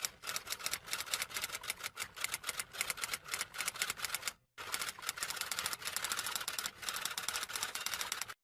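Typewriter sound effect: rapid, uneven keystroke clacks, with a short break about halfway through.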